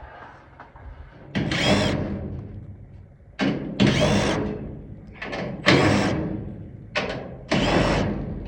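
Cordless power drill or driver running in a series of short bursts, each spinning up and winding down, backing screws out of the carport's sheet-metal panels.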